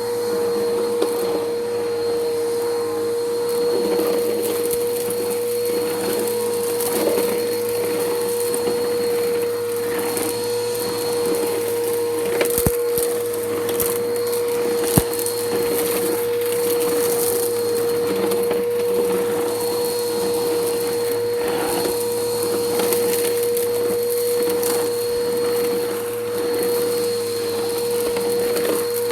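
Bissell Powerforce Helix 1240 upright vacuum running steadily with a constant motor hum, crackling and crunching as it picks up grit and debris from concrete. A sharper click stands out about fifteen seconds in.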